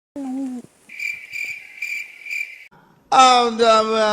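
Cricket-like chirping, about four evenly spaced high chirps lasting nearly two seconds, between a short voiced sound at the start and a long held voice that begins near the end.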